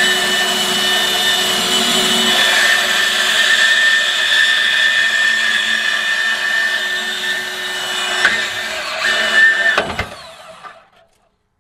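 DeWalt 20V Max DCS374 cordless deep-cut band saw running and cutting through a rusty steel bumper tube, a steady whine over the rasp of the blade in the metal. About ten seconds in there is a sharp knock, then the motor winds down and stops.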